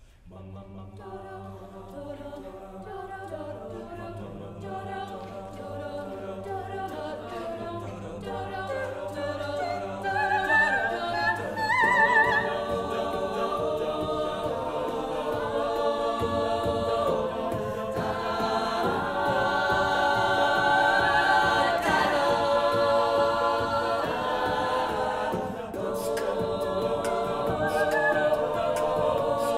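Mixed a cappella group singing the intro of a pop arrangement, voices only, in stacked chords over a held low bass note. About twelve seconds in the bass line starts moving, the harmony thickens and the singing gets louder.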